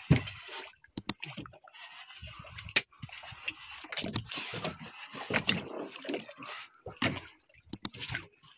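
Sea water sloshing against a small boat's hull. Three sharp double clicks come about a second in, about four seconds in and near the end.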